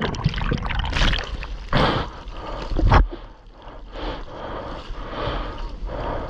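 Seawater splashing and rushing right at a GoPro in the surf, with wind on the microphone. Two loud surges come about two and three seconds in, then a softer steady wash.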